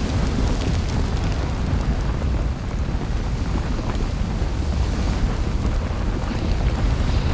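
Added volcanic eruption sound effect: a steady, dense low rumble with scattered crackles and pops throughout.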